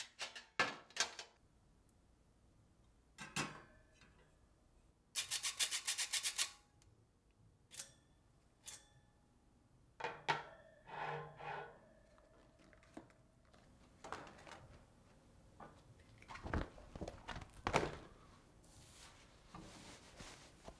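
Stainless steel trays and a wire cooling rack clinking and clattering as they are handled and set down, with a fast rattle about five seconds in and short metallic rings a little later. Softer thuds and fabric rubbing follow near the end as a quilted oven mitt is handled.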